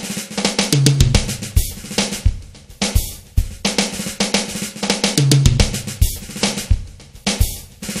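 Instrumental fusion jam: a drum kit plays a steady beat of snare, bass drum and cymbals over a low bass note that recurs about every four and a half seconds.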